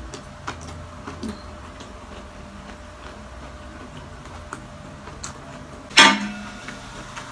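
Close-up chewing with small scattered crunchy clicks, then one sharp clink with a short ring about six seconds in as a drinking glass is picked up from the table.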